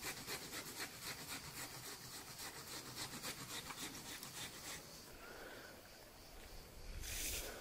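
Hand food preparation on a wooden worktable: quick, even rasping strokes, about four a second, that stop about five seconds in. A short hiss follows near the end.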